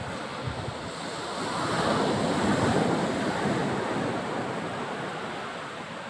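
Sea surf washing on the shore, one swell of noise rising about a second in and fading away over the next few seconds.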